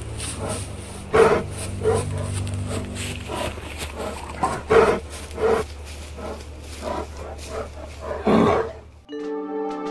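Dog-like beast growling and barking in short, irregular bursts over a steady low rumble, the longest about 8.5 seconds in. Near the end the rumble cuts off and piano music begins.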